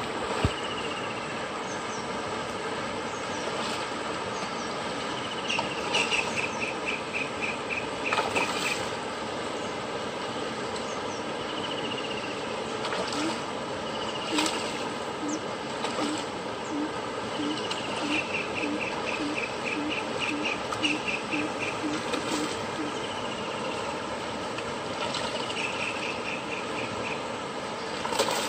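A hooked rohu splashing at the surface now and then as it is played on a rod, over a steady rush of water. Trains of quick high chirps come and go throughout, with a run of low repeated pulses in the middle.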